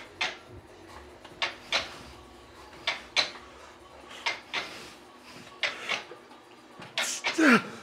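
A set of reps on a leg extension machine: a pair of short, sharp sounds with each rep, about every 1.3 seconds, ending near the end in a longer strained burst.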